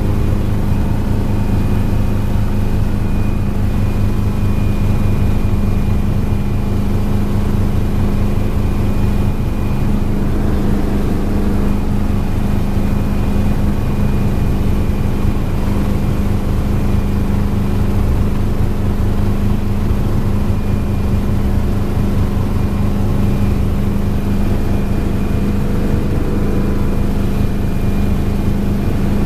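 Small helicopter's engine and rotor heard from inside the cockpit: a steady loud drone with a fast, even rotor beat and a thin, steady high whine over it.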